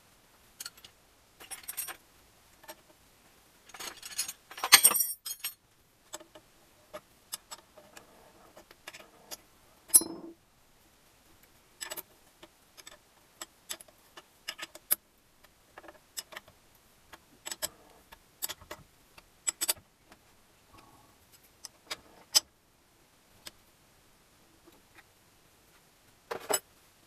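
Small steel gearbox parts of a Gilera Sport 150 clinking and clicking against each other and the aluminium crankcase as they are handled and fitted: scattered sharp clicks, a louder jangle of parts about four to five seconds in, and one hard knock near ten seconds.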